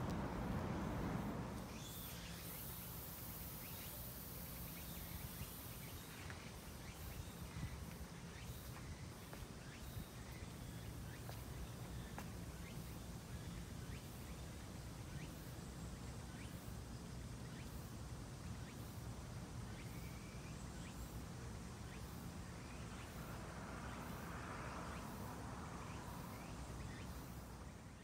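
Quiet outdoor ambience: a steady low hum of distant city traffic, with faint scattered bird calls and a soft high pulse repeating about once a second.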